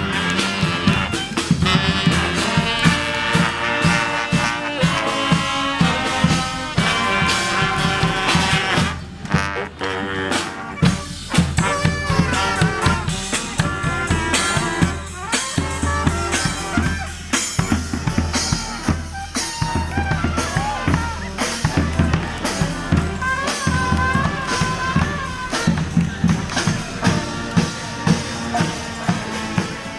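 A street band playing a tune on horns over a steady drum beat with bass drum, dipping briefly about nine seconds in.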